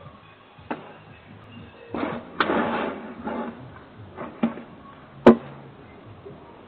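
A few sharp clicks and knocks, the loudest about five seconds in, with a rustling noise lasting about a second around two seconds in, over faint background music.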